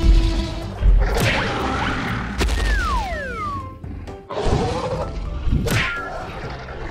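Cartoon fight sound effects over background music: loud crashing hits about 1, 2.5 and 6 seconds in, with a falling whistle-like tone just after the second hit.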